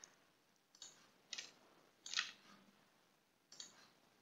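Faint computer mouse clicks, about five short clicks at irregular intervals, with near silence between.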